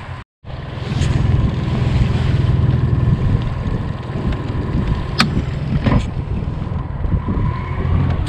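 Boat motor running steadily under way, with wind on the microphone. The sound cuts out briefly just after the start, and two sharp knocks come about five and six seconds in.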